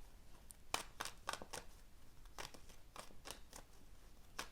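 A tarot card deck being shuffled by hand: a faint, irregular series of soft card slaps and clicks.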